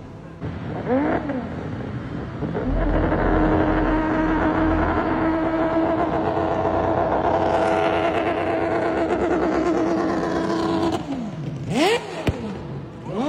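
Mazda 787B's four-rotor rotary engine at high revs, holding a loud, steady, high note for several seconds. It drops off about eleven seconds in, followed by quick revs rising and falling near the end.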